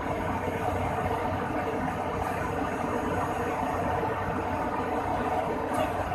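Steady mechanical drone from an Airbus A300-600's running systems during a ground operational check, an even hum with no change in pitch or level.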